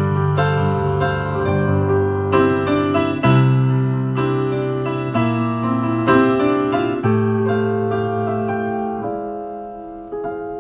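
Solo piano playing a slow piece, with chords and melody notes struck about once a second and left to ring and fade.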